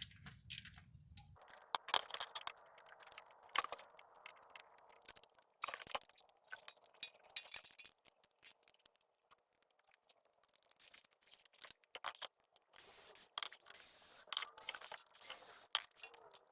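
Hand tools working the 10 mm bolts out of an automatic transmission oil pan: irregular small metallic clicks, clinks and scrapes.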